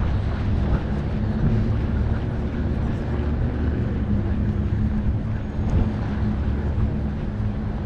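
Steady low engine rumble with a droning hum that holds one pitch throughout.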